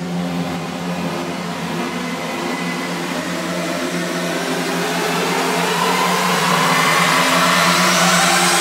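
Synthesizer build-up in an electronic track: a rushing noise riser over a low held drone, swelling steadily louder, with a pitch sweep rising through the last few seconds.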